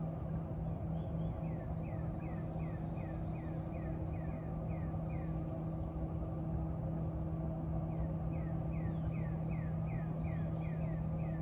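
Goodman 3-ton packaged heat pump running in cooling mode, a steady hum under the rush of the condenser fan. Over it, a bird sings runs of short, quick falling notes, about three or four a second, with a pause in the middle.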